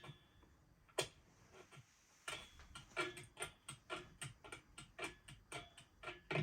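A few separate sharp clicks, then, from about two seconds in, a quick irregular run of light clicking taps, about three a second.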